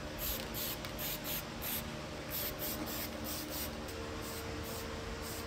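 Aerosol spray paint can hissing in short bursts, two or three a second, laying a light coat of paint.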